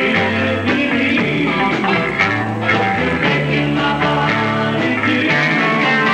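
Live band playing with electric guitars, bass and drums. The recording is distorted from too-hot gain.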